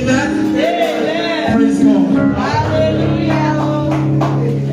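Church background music of long held chords, with a man's voice rising and falling over it.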